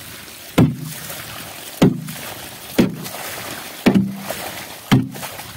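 Water gushing out of holes knocked in the side of an old bathtub, with five hollow knocks on the tub about once a second.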